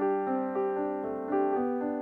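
Background piano music: a gentle melody of single notes changing every few tenths of a second over held lower notes.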